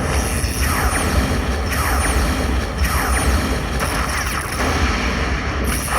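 Slot machine sound effects: booming, whooshing bursts that repeat about once a second, each with falling tones, over the steady din of a casino floor.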